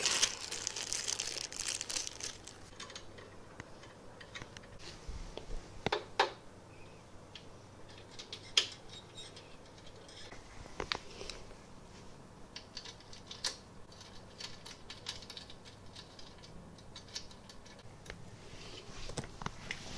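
Hands at work on the printer frame: a plastic bag crinkles for the first two seconds or so, then come scattered light clicks and taps of screws and small metal parts being handled and fitted.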